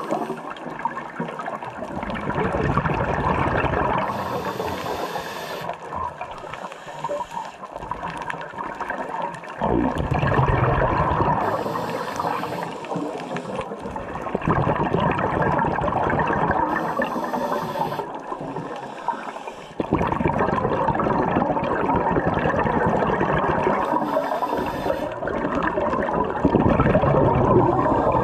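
Scuba diver breathing through a regulator underwater. A short hiss on each inhale is followed by a long rushing, gurgling stream of exhaled bubbles, the cycle repeating about every six to seven seconds.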